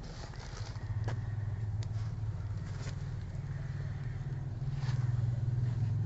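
Steady low machine hum, a little louder near the end, with a few faint clicks.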